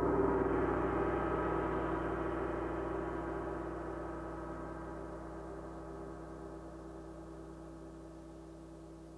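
28-inch wind gong (feng luo) ringing out after a single strike: a dense shimmer of many overtones, slowly and evenly fading.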